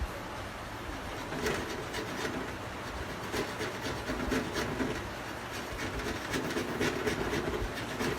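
Nail file scraping back and forth on a refrigerator's aluminum evaporator, cleaning around a puncture hole before it is welded; short, uneven rasping strokes, roughly one or two a second.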